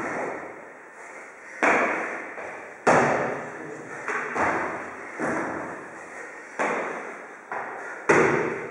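A run of about seven heavy thuds from a man doing burpees and box jumps: his body dropping to a rubber gym floor and his feet landing on a wooden plyo box. Each thud fades out over about a second in the echoing room.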